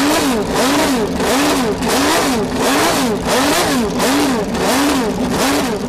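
An engine revving up and down over and over in a steady rhythm, about twice a second.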